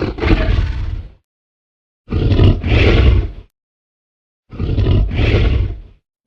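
Tyrannosaurus rex roar sound effect: three deep, rumbling roars of about a second and a half each, with dead silence between them.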